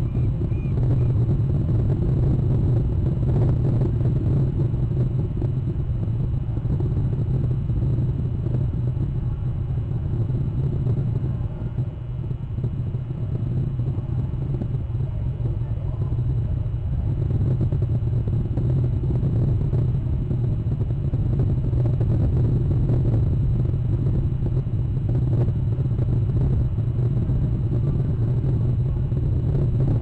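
Steady low outdoor rumble picked up by a webcam microphone, with a slight dip about twelve seconds in.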